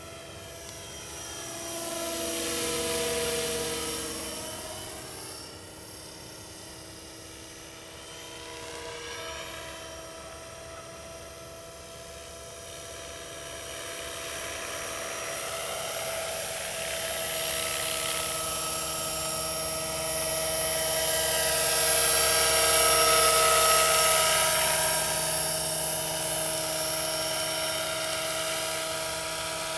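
Scale radio-controlled AS350 model helicopter in flight: a steady high whine of its motor and rotors, swelling louder as it passes closer about three seconds in and again for a stretch past twenty seconds.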